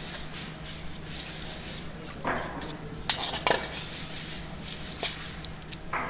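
Small metal hydraulic pump parts being scrubbed and rinsed by hand in a steel basin of soapy water: water swishing and rubbing, with a few sharp clinks of metal against metal, about four of them spread through the middle and end.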